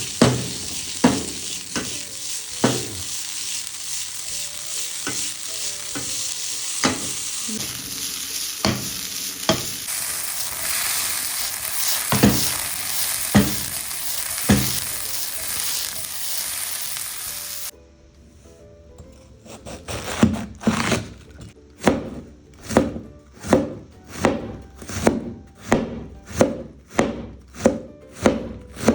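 Food sizzling as it fries in a pan, with a spatula stirring and knocking against the pan now and then. About eighteen seconds in the sizzling cuts off abruptly, and after a short pause a knife chops steadily on a cutting board, about one and a half strokes a second.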